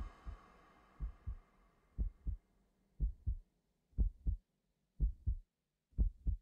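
Heartbeat sound effect: pairs of short low thumps, a lub-dub about once a second, growing louder over the first few beats while a faint background hum fades away.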